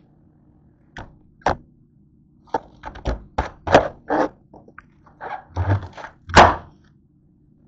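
Kitchen knife cutting through a head of green cabbage: a run of short crisp crunches and knocks as the blade works down through the leaves and strikes the cutting board. The last two land with a heavy thunk, the one near the end the loudest.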